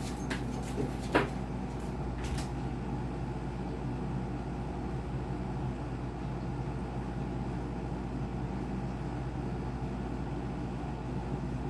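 A few light clicks and knocks in the first couple of seconds, from handling laptop parts during a RAM upgrade, over a steady low hum that carries on alone afterwards.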